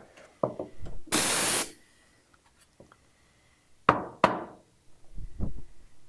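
Bezzera dual-boiler espresso machine's steam wand purged after frothing: a short, loud hiss of steam lasting about half a second, starting about a second in. Two sharp knocks follow near the middle, then a few duller thumps near the end.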